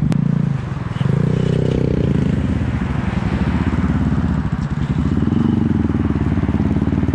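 Manual motorcycle engine running, its note rising and falling as it is revved: it eases off just before a second in, picks up again, and rises once more about five seconds in.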